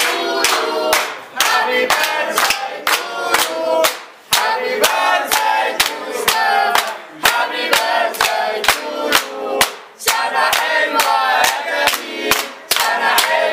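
A group of waiters singing a loud chanted celebration song together, with steady hand-clapping of about two to three claps a second.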